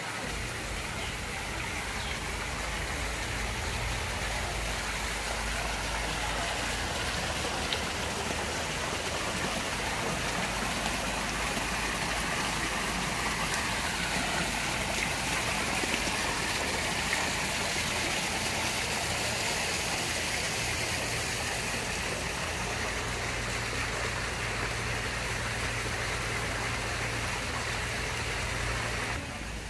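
Water pouring from several wall spouts into a koi pond, a steady splashing and rushing.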